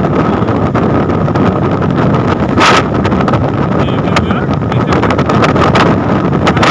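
Wind buffeting and crackling on the microphone at the open window of a vehicle at highway speed, over steady road and engine noise, with a louder gust about two and a half seconds in. A faint steady whine runs under it.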